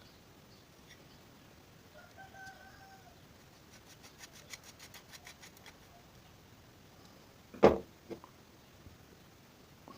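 Small-parts bench work while a scooter carburettor is put back together: a brief squeak about two seconds in, a quick run of light clicks in the middle, and a sharp knock near the end, the loudest sound, followed by a smaller one.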